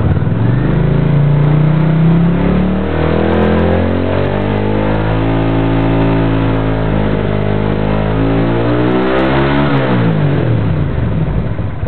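1982 Honda GL500's V-twin engine, freshly tuned with synchronized carburetors, revved up from idle in two steps and held at higher revs. About ten seconds in the throttle is closed and it drops smoothly back to idle, with no backfiring.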